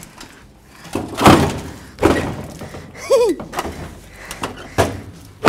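Rusted steel rear bumper of a 1996 Dodge Ram 1500 being shaken and wrenched loose from its cut mounts: a few heavy metal thunks and clanks, the loudest about a second in.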